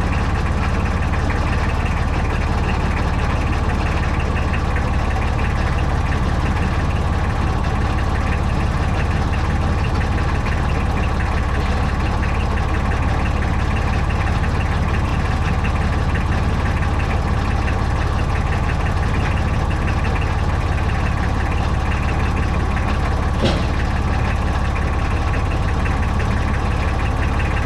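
An engine idling steadily at an even speed throughout, with a single short click about 23 seconds in.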